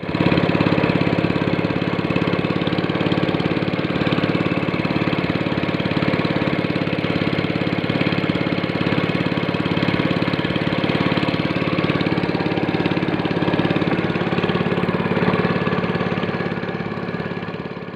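A small engine running steadily at an even speed, starting abruptly and fading out near the end.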